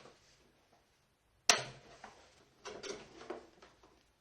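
Plastic air filter of a gas fan heater being handled and fitted back: one sharp click about one and a half seconds in, then a run of smaller clicks and rattles.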